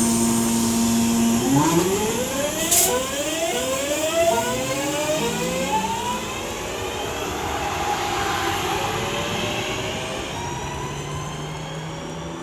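Two coupled Class 323 electric multiple units accelerating away from the platform, their traction motors whining in rising tones that climb again and again in steps, with a sharp click about three seconds in. The sound fades as the train pulls away.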